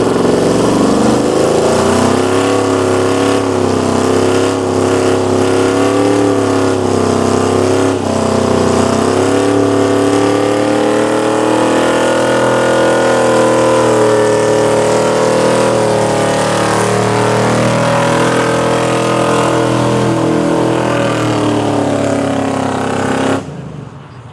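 A muscle car's V8 engine held at high revs during a burnout, its pitch wavering up and down over a steady rush of noise. The sound drops away sharply near the end.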